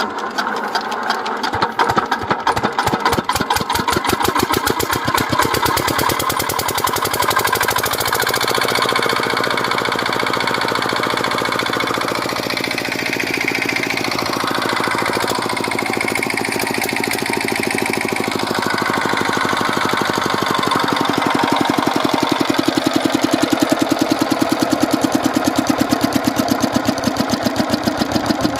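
JCB 3DX backhoe loader's diesel engine catching and running with an even firing rhythm. A higher whine swells and fades twice midway, and the engine's beat becomes more pronounced near the end.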